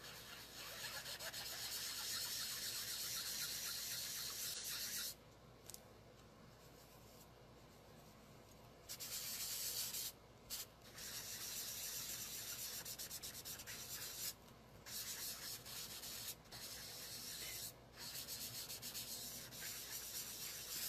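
Ink-loaded sponge rubbing over cardstock in several stretches of a few seconds each, with short pauses between them, as a background is sponged on.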